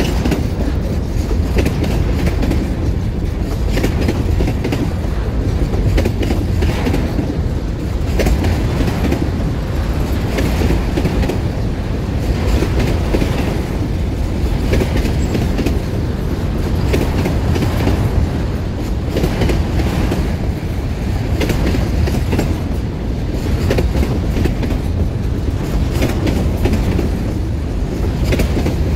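Freight train wagons rolling past on the track: a steady low rumble, with repeated clicks and clacks of the wheels passing over rail joints.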